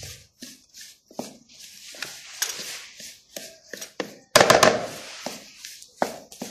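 A utensil stirring flour into hot melted ghee in a bowl: short scraping strokes with gaps between them, and a louder clatter about four seconds in. The flour is being worked so that it soaks up the ghee.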